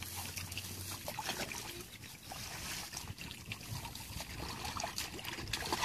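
Shallow muddy water stirred by wading legs and groping hands: scattered small splashes and trickling, uneven and irregular.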